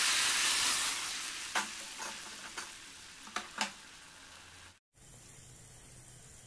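Hot water hitting the hot oil and fried masala in a kadai: a loud sizzle that fades away over about four seconds, with a few sharp knocks along the way. After a brief break, a faint steady bubbling as the liquid boils.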